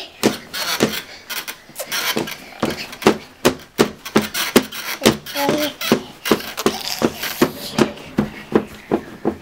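A long run of short, sharp taps or smacks, about two to three a second and fairly even, made by small children playing at a playpen; a faint bit of child voice is heard about halfway.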